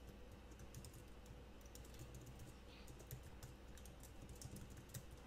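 Faint typing on a computer keyboard: an irregular scatter of light key clicks.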